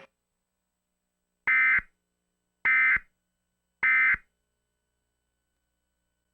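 Emergency Alert System end-of-message signal: three short bursts of SAME digital data tones about a second apart, marking the end of the alert.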